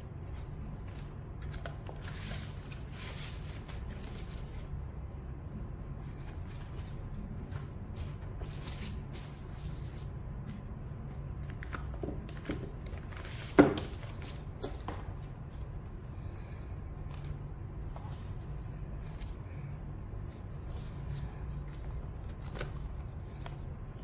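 Hands rustling plastic zip bags and handling a zippered hard-shell carrying case, with scattered light rustles and clicks and one sharp knock about halfway through.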